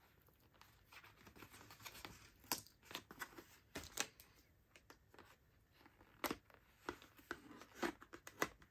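Soft rustling and scattered light taps and clicks of a thin cardboard envelope being handled and pressed flat by hand, at irregular intervals.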